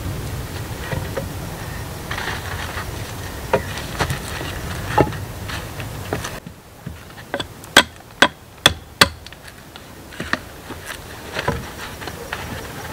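Peeled wooden poles knocking against each other and the log wall as they are fitted in place. A few scattered wooden clunks, then four sharp knocks in quick succession a little past the middle.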